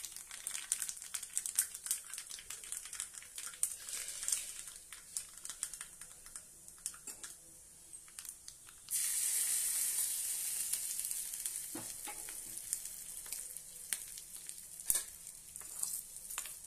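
Ghee tempering of mustard seeds and curry leaves crackling in a small pan, with scattered sharp pops. About nine seconds in, a loud sizzle starts suddenly as the hot tempering hits the ground cabbage chutney, then fades over a few seconds; a spoon scrapes and taps the pan near the end.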